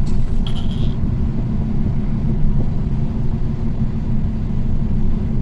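Steady low rumble of a car driving, heard from inside the car: engine and road noise.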